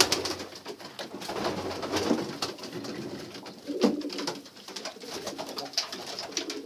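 Domestic pigeons cooing in a small coop, with scattered light clicks and rustles.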